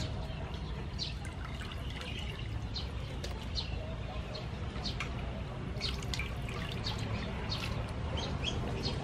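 Squid being washed by hand in a stainless steel bowl of water: irregular small splashes, sloshing and drips.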